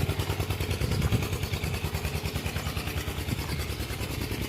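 A small engine running steadily nearby, giving a rapid, even, low thudding beat.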